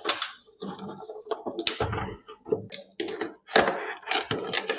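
Irregular rustles, scrapes and light knocks of packaging being handled as a cardboard box is opened.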